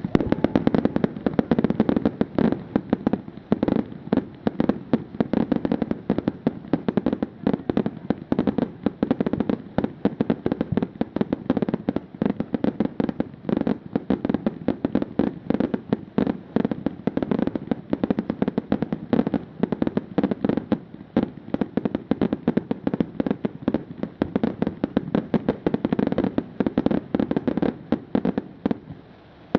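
Firework display: a continuous rapid barrage of bangs and crackles, many reports a second, with no pause.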